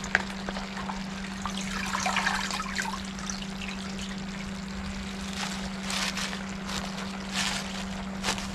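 Pot of coconut-milk stew bubbling, with fresh spinach leaves rustling and crackling as they go in and wilt. A steady low hum runs underneath.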